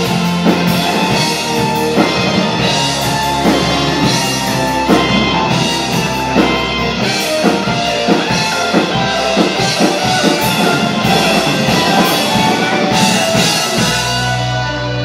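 Live progressive rock band playing: electric guitar, keyboards and a drum kit, the drums beating steadily. About a second before the end the drums drop out, leaving held chords ringing on.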